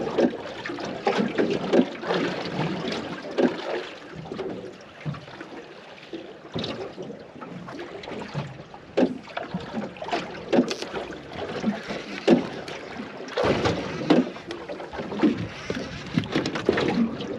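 Water slapping and lapping against the hull of a small aluminium boat, with irregular knocks and clatter, and one louder thump about 13 seconds in.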